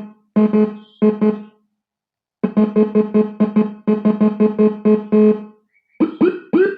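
Electronic siren module, a locally made Whelen-style 24-tone unit, cycling through its tones. A low tone pulses rapidly in short bursts separated by gaps, then near the end a fast rising yelp repeats about four times a second.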